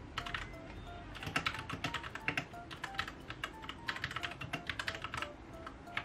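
Typing on a Royal Kludge RK61 60% mechanical keyboard: quick runs of key clacks that thin out near the end, over soft background music.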